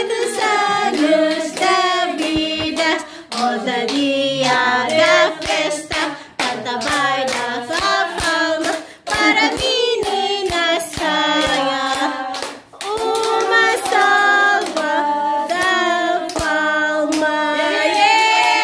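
A group singing a birthday song together, with hand clapping keeping the beat; a long held note near the end.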